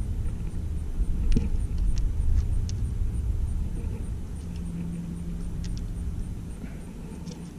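Low, steady outdoor rumble with a few faint clicks scattered through it and a brief low hum about halfway through.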